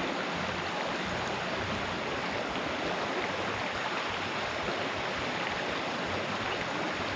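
Steady rush of running water, even and unbroken throughout.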